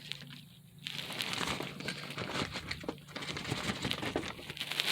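Plastic zip bag crinkling and rustling in the hands, in irregular short crackles after a brief quiet moment.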